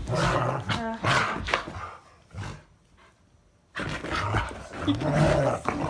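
Two pet dogs growling and scuffling at play, with a quiet pause of about a second and a half in the middle.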